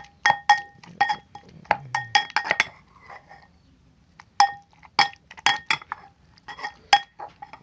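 Metal pestle striking and scraping the inside of a metal mortar, ringing clinks in quick irregular runs, while pounding and mixing a wet tomato and green chilli chutney. The strikes pause for about a second and a half near the middle, then start again.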